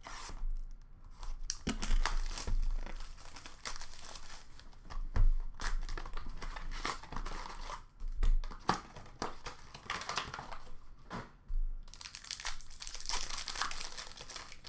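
Hockey card packs being opened by hand: the wrappers crinkle and tear, with cards sliding and tapping as they are pulled out and handled, in uneven spurts.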